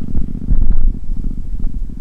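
Royal Enfield Interceptor 650's parallel-twin engine running with a steady low pulsing rumble, swelling louder for a moment about half a second in.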